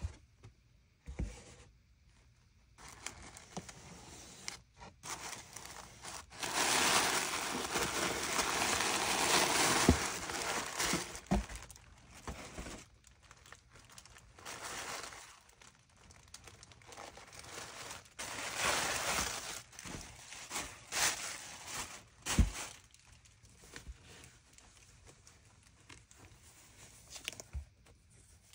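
Tissue paper crinkling and rustling in bursts as a cap is unwrapped and lifted out of its box, the longest burst a few seconds in and another past the middle. There are a few sharp knocks from handling the box and cap, the loudest after the second burst.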